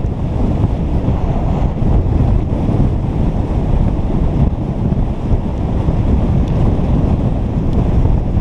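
Steady, loud wind buffeting an action camera's microphone as it rushes downhill on a ski run, a low rumbling roar with no let-up.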